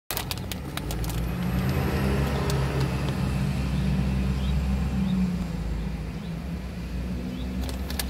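A car's engine running, a steady low hum heard from inside the cabin, with a few sharp clicks in the first second and again near the end.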